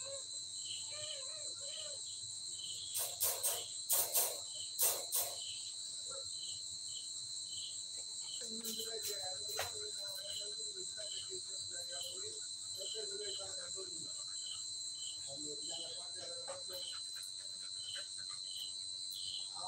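Night insect chorus: crickets trilling steadily, with a regular chirp about twice a second. A few sharp clicks come about three to five seconds in.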